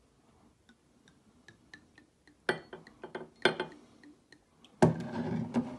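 Liquid being poured from a glass bottle into a small stemmed glass. Faint drips and ticks come first, then a few sharper clicks, and a fuller stream of pouring near the end.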